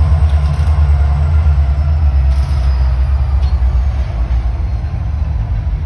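Train passing about 20 feet away: a loud, steady low rumble.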